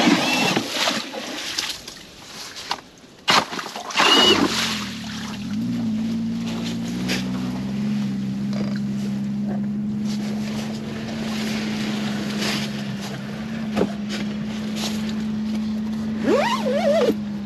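A few sharp knocks, then about four seconds in a motor or small engine starts, rises briefly in pitch and settles into a steady low hum.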